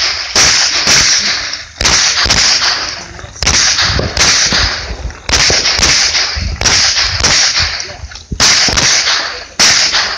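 Pistol shots fired in rapid pairs, a new pair about every second and a half, each shot with a long echoing tail.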